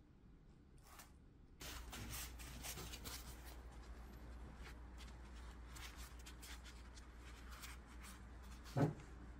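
Hands rubbing and smoothing the surface of a clay sculpture's head, a string of soft scrapes and rustles. A steady low hum starts about a second and a half in, and a single thump comes near the end.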